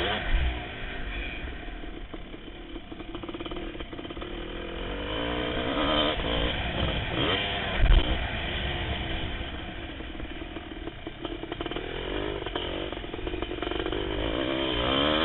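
1988 Kawasaki KX500's two-stroke single-cylinder engine revving up and down repeatedly as the motocross bike is ridden flat out over a dirt track. Two heavy low thumps come through, about half a second in and about eight seconds in.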